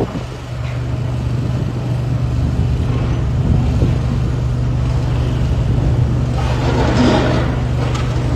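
Diesel engine of heavy demolition equipment running steadily at a low pitch, with a louder, rough burst of noise about six and a half seconds in.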